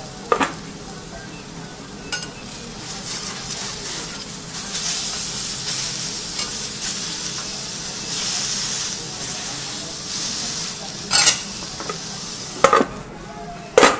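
Food sizzling on a hot teppanyaki iron griddle, the sizzle swelling in the middle. A steel spatula clacks sharply against the griddle a few times, loudest three times in the last few seconds.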